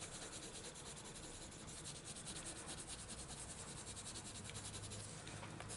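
Prismacolor coloured pencil shading on a book page in rapid, even back-and-forth strokes, a faint scratchy rub of pencil on paper.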